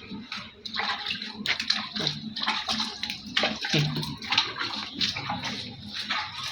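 Water splashing and sloshing in a tub or basin, in irregular bursts, as during a bath.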